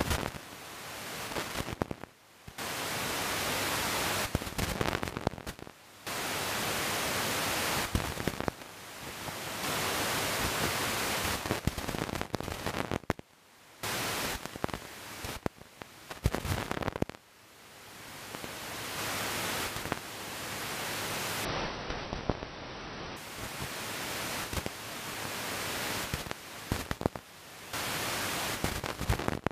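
Radio static from an RTL-SDR receiver tuned to 124 MHz, with sharp crackles from lightning strikes (sferics). The hiss cuts out and comes back several times, swelling after each return.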